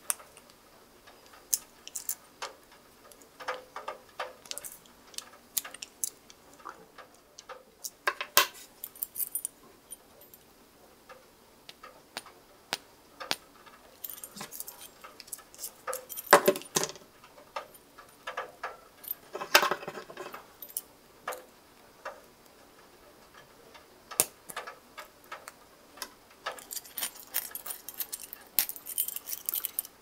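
Small metal clicks and scrapes from handling a Swiss Army knife and a steel split key ring, with a few louder handling noises in the middle. Keys jangle on the ring near the end.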